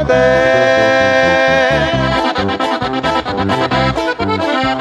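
Live sierreño band music: an accordion holds a long chord for about two seconds, then carries the melody over a strummed twelve-string guitar and a steady electric bass line.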